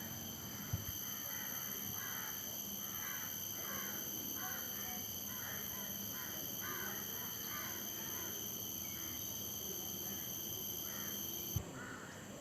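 An animal giving a long series of short, harsh calls, about two a second, over a steady high-pitched insect drone. The calls stop near the end.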